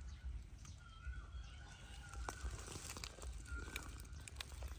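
A short, high animal call repeated about every second and a half over a steady low rumble, with a few faint clicks.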